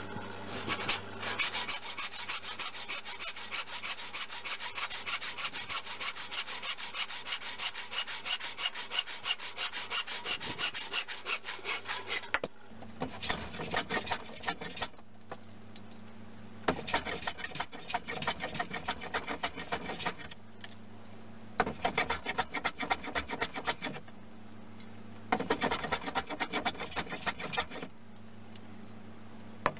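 Hand saw cutting through an old wooden board in rapid, steady strokes. About halfway through this gives way to a bench plane shaving a pine board in four runs of strokes with short pauses between them.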